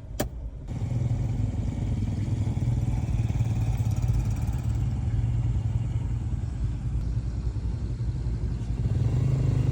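A short click, then a motor vehicle's engine running steadily with a low hum.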